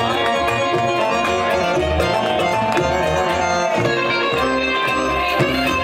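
Live band playing a tsifteteli for belly dance: a plucked string instrument carries the melody over bass and drums in a steady dance rhythm.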